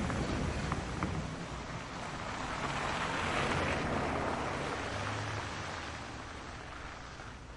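A steady rushing noise that swells to its loudest about halfway through and then fades toward the end, over a faint low hum.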